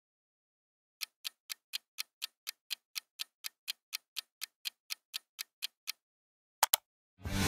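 Clock-style ticking sound effect for a countdown timer: evenly spaced ticks at about four a second for about five seconds. A quick double click follows near the end, then music starts just before the end.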